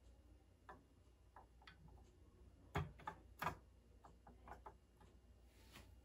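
Faint, irregular clicks and taps of a Xeon processor being set into its open socket on a Mac Pro's CPU board, with two sharper knocks near the middle.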